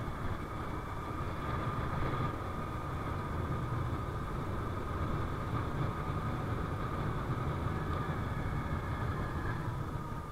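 Yamaha Ray scooter's small single-cylinder engine running steadily while riding at a cruise, a low rumble with a steady higher whine over it.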